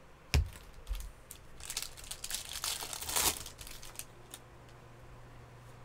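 Hands handling a stack of baseball trading cards. A sharp knock comes about a third of a second in, then a stretch of crinkling and rustling around the middle, with a few light clicks after.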